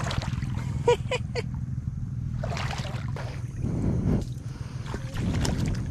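An engine running steadily with a low rumble; three short squeaks come about a second in.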